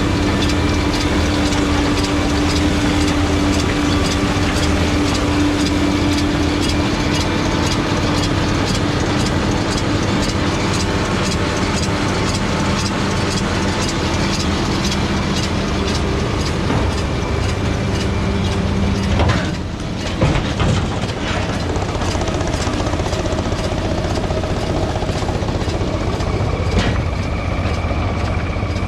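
Tractor engine running under load with a round baler working, a steady hum overlaid by a regular mechanical clatter. About two-thirds of the way through the low hum briefly drops away and the machinery note changes.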